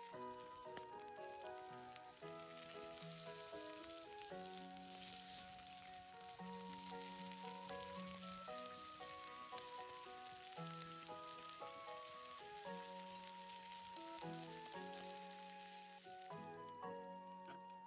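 Food sizzling and crackling as it fries in a pan, stopping shortly before the end, under background music with a simple melody.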